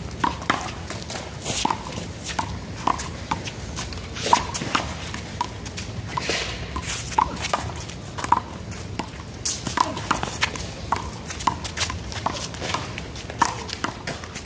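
One-wall handball rally: a small rubber handball slapped by hand, smacking the wall and bouncing on the pavement, a string of sharp irregular smacks about one to two a second.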